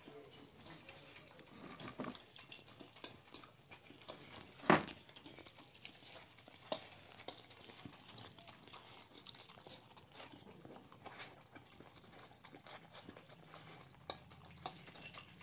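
Labrador puppy eating rice off a metal plate: steady licking and chewing with many small clicks of tongue and teeth against the plate. A single loud knock stands out a little under five seconds in, with a smaller one about two seconds later.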